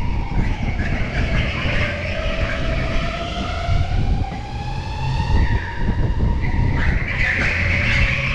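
Electric go-kart's motor whining under a low rumble. Its pitch drops over the first two seconds as the kart slows, climbs again as it accelerates, then dips once more; a burst of hiss swells about seven seconds in.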